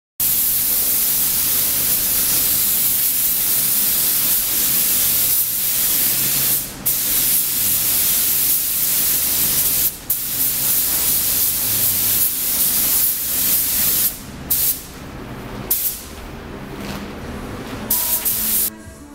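Compressed-air paint spray gun spraying paint in a steady, loud hiss, with a few brief breaks about seven, ten and fourteen to sixteen seconds in, and stopping shortly before the end.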